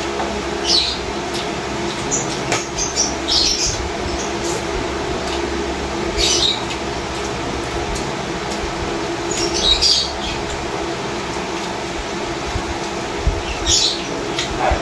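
Mukbang eating sounds: chewing and lip smacking as fried chicken and rice are eaten by hand, short sharp noises every few seconds over a steady room hum.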